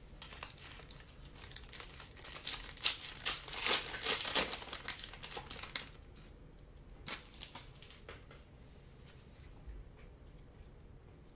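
Foil wrapper of a Panini Prizm trading-card pack crinkling as it is torn open, loudest for a few seconds in the middle, then a few lighter rustles as the cards are pulled out.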